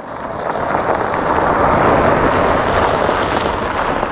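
A long rumble of thunder that swells to a peak about two seconds in and then slowly dies away.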